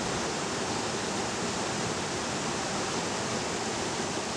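Shallow mountain river rushing steadily over stones and a small riffle, an even, unbroken water noise.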